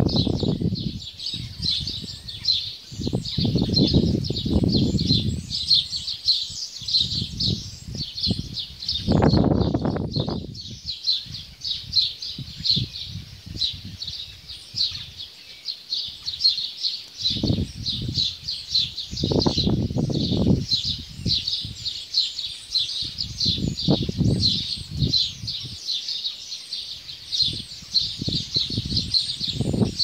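A large flock of small birds chattering all at once in a tree: a dense, unbroken stream of quick high chirps. Low rumbles swell and fade every few seconds underneath.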